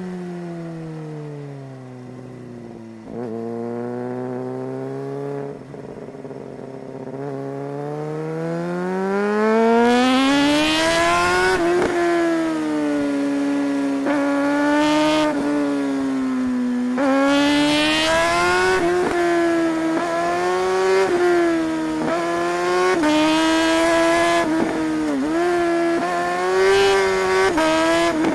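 Suzuki GSR 600's inline-four engine under way. The revs drop and it runs low for a few seconds, then it accelerates hard with climbing revs, rising and falling with the throttle, with quick dips in pitch between pulls.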